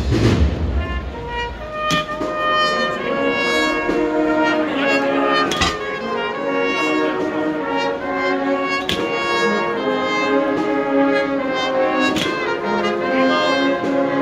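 Agrupación musical brass-and-percussion band playing a Holy Week processional march: trumpets and cornets carry the melody over trombones. The band comes in about a second in and builds, with a drum stroke about every three seconds.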